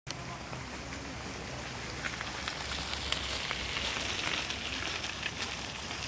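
Small waves lapping and splashing against a half-submerged rock: a steady hiss with many small ticks, swelling a little around the middle.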